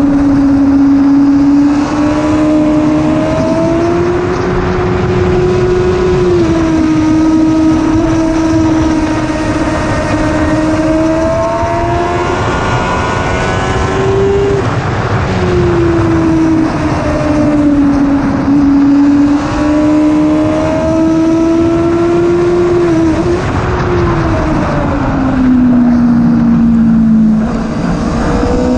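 1000cc sportbike engine at speed on a track lap, its note climbing slowly and dropping several times as the bike is shifted and throttled through corners.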